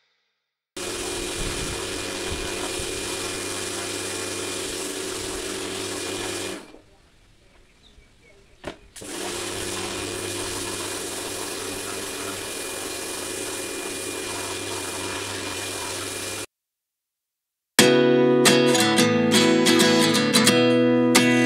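Pressure washer running, its motor humming under the hiss of the spray. It cuts out for about two seconds with a click, starts again, then stops. Louder strummed acoustic guitar music comes in near the end.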